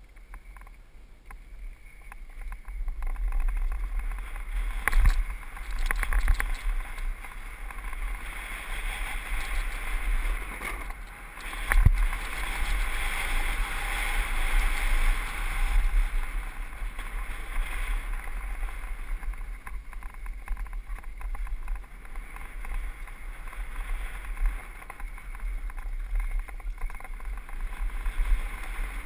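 Wind buffeting the rider's camera microphone during a fast mountain-bike descent, mixed with tyre noise on the dry dirt trail. A few sharp knocks and rattles from the bike hitting bumps, the loudest about twelve seconds in.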